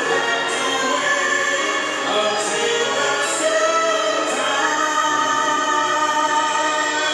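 A man and a woman singing a duet through microphones, holding long sustained notes.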